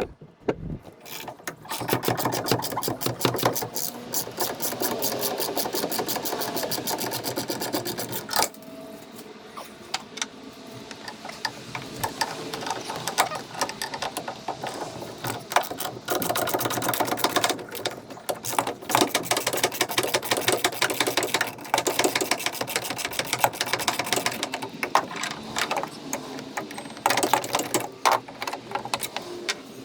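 Power driver running in several long bursts of rapid, even clatter, backing out the screws that hold the old tailgate pivot point on a 2022 Ford Super Duty.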